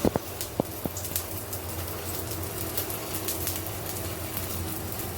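Chicken patty frying in shallow oil in a pan, sizzling with scattered crackling pops over a steady low hum. A few sharper knocks come in the first second.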